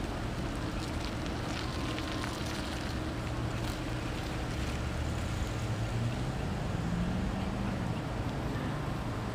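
Low, steady hum of an idling vehicle engine, with a brief rise and fall in pitch about seven seconds in.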